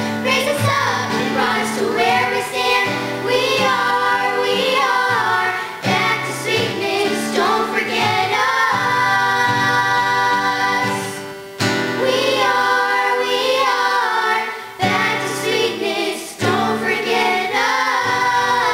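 Young girls singing together in harmony, with an acoustic guitar accompanying them.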